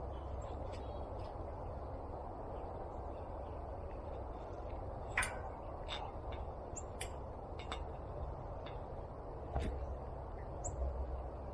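Steady low outdoor background noise with a scattering of short, sharp clicks and a few brief high chirps; the loudest click comes about five seconds in.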